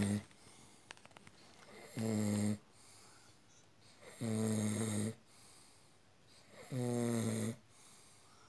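A person snoring: three long, pitched snores about two and a half seconds apart, each lasting under a second, with the tail of another right at the start.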